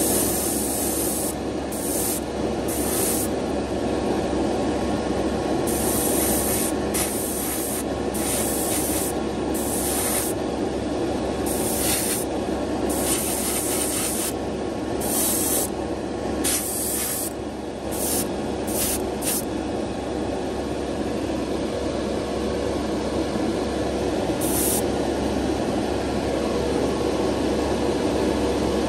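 Spray booth extractor fan running steadily with a hum, while paint is sprayed onto a small model part in about fifteen short hisses, most of them in the first twenty seconds and one near the end.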